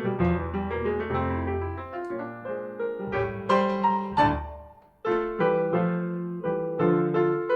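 Jazz piano playing chords and short runs, with a brief pause about five seconds in before it starts again.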